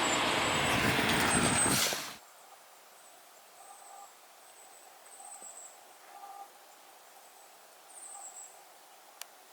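Logging truck running with steady engine and road noise, which cuts off abruptly about two seconds in. A near-quiet stretch follows with a few faint, short bird calls and a single small click near the end.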